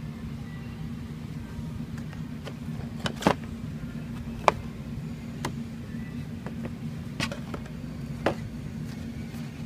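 Plastic blister-pack toy cars and shelf packaging being handled, giving several sharp clicks and taps, the loudest about four and a half seconds in, over a steady low hum.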